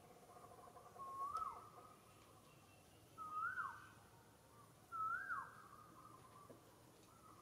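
Three short whistled animal calls about two seconds apart, each rising in pitch and then dropping sharply, over a faint steady high hum.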